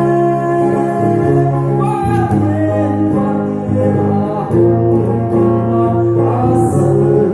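Live music: a man singing into a microphone, accompanied by an electric guitar, amplified through a PA system.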